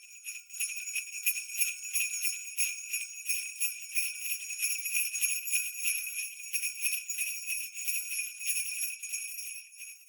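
Small bells jingling, shaken steadily in a rapid, continuous shimmer that fades away near the end.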